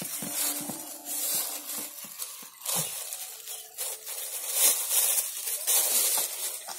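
Hands rubbing and kneading a crumbly fishing-bait mix against a stainless steel bowl, a gritty swishing that comes in uneven strokes. This is the rubbing stage of bait preparation, which works the scent into the bait.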